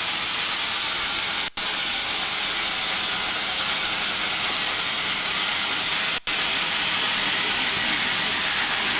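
Novec 1230 gas fire-suppression system discharging into the compartment: a loud, steady rushing hiss of the extinguishing agent flooding the space to put out the fire. The hiss cuts out for an instant twice.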